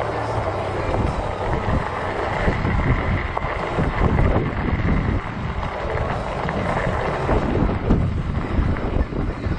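Heavy wind buffeting the microphone while riding a fat-tire e-bike in gusty wind: a steady, rough rush with uneven low rumbling.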